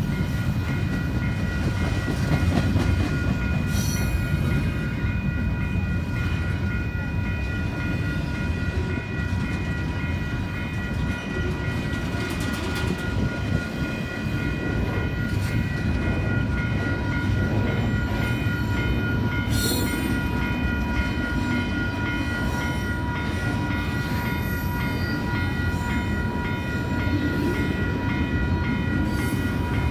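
Double-stack container cars of a long CPKC intermodal freight train rolling past: a steady rumble of wheels on rail with a few sharp clanks from the cars. Over it a grade-crossing bell rings steadily.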